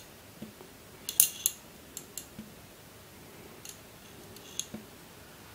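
Small steel ball bearings clicking and rattling against the clear plastic walls and green maze of a 1993 Chadwick Miller Mind Teaser dexterity cube as it is tilted by hand. Scattered sharp clicks, the loudest little cluster about a second in, then single clicks every second or so.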